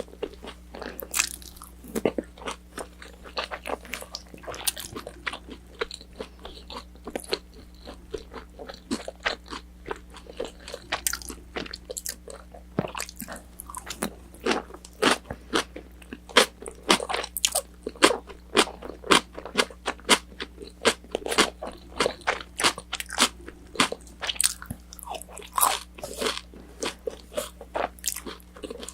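Close-miked chewing and crunching of crispy battered orange chicken, with quick wet mouth clicks several times a second that grow louder about halfway through. A faint steady hum runs underneath.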